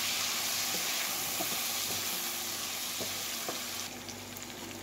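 Chicken pieces and ginger-garlic paste sizzling in hot oil in a non-stick wok, stirred with a wooden spoon, with a few faint knocks of the spoon. The sizzle eases a little near the end.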